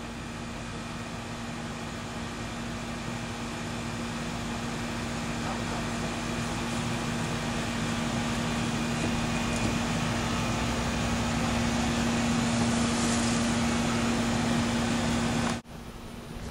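Outdoor air-conditioning condenser units running: a steady fan-and-compressor hum with a low droning tone, slowly growing louder, then stopping abruptly near the end.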